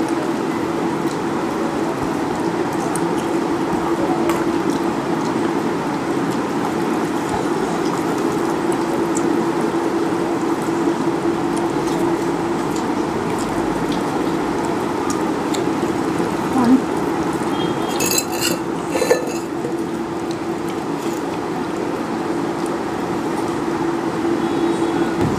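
Steady background hiss with a low hum, under quiet eating sounds as rice is mixed by hand on a plate; a few sharp clinks of steel bowls and dishes come about 18 seconds in.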